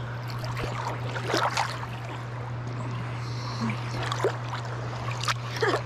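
Irregular splashing and sloshing of water as people wade and breaststroke through a lake, over a steady low hum.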